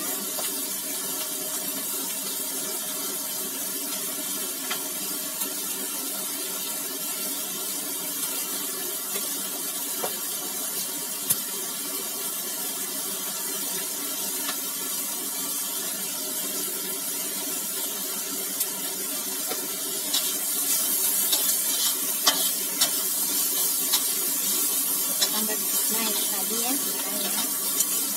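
Stir-fry sizzling in a wok, a steady hiss. About twenty seconds in the hiss grows louder, with clicks and scrapes of a metal spatula as the food is tossed.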